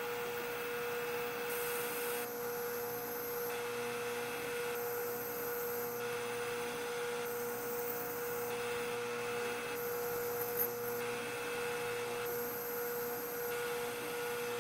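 Bandsaw running with a steady motor hum as its blade cuts a curve through a block of wood. The hum stops near the end when the saw is switched off at the end of the cut.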